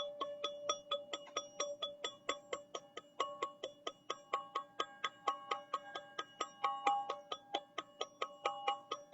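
Teal ZenTube sound-healing instrument played continuously: a quick, even stream of bright metallic strikes, about five a second, ringing on a few steady pitches.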